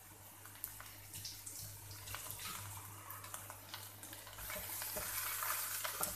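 Faint sizzle of chopped onions in a hot black wok, growing slowly, with scattered light clicks. In the second half a wooden spatula starts stirring and scraping the onions around the pan.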